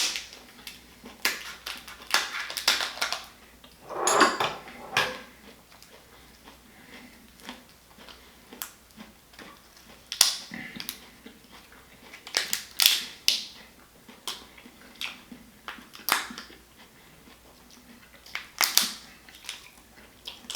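Whole lobster's shell being cracked and broken apart: irregular sharp cracks and crunches, several seconds apart, with a few denser bursts.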